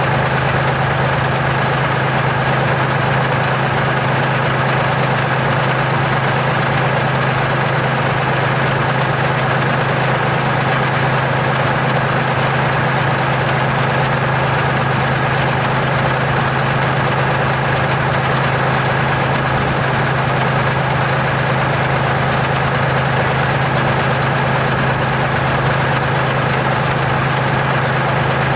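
Diesel engine of a Terex R-35 rigid dump truck running steadily at one constant speed, a deep hum with no revving.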